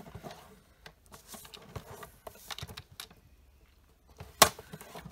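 A sheet of designer paper being handled and scored on a paper trimmer: soft sliding and rustling of the paper with a scatter of light taps and clicks, and one sharp loud click about four and a half seconds in.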